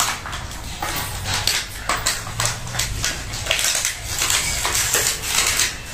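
Crinkling and rustling of clear plastic packaging and a cardboard toy box being handled, in irregular bursts.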